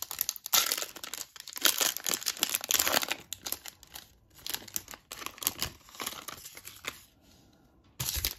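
Foil wrapper of a trading-card pack being torn open and crinkled, in a dense run of crackling for about three seconds. Then come scattered, lighter crinkles as the cards are slid out, with a short burst of rustling near the end.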